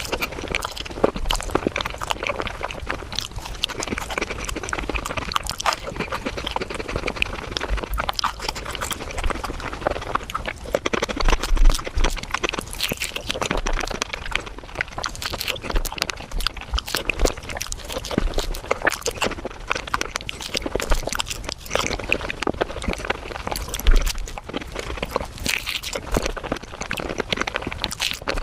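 Close-miked eating of a Japanese fruit sandwich (soft bread, cream and fruit) sped up to five times normal speed: a fast, unbroken run of wet chewing and mouth sounds.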